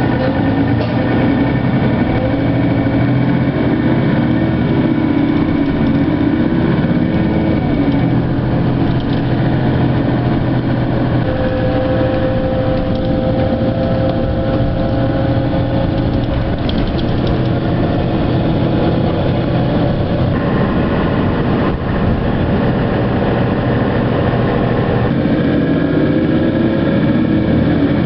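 Mercedes-Benz Citaro city bus driving, its engine running steadily. About the middle, a whine slowly rises in pitch for a few seconds.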